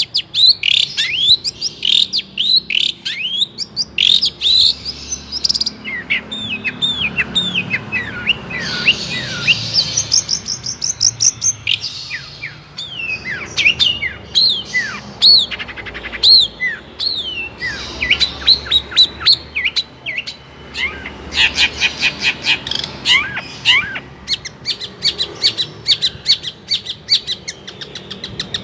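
Long-tailed shrike (cendet) singing a continuous, varied song of quick chirps, falling whistled notes and fast trills.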